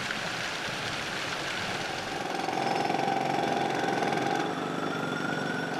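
City street traffic: vehicle engines running, with a steady mechanical whine that comes in about two seconds in and makes it louder.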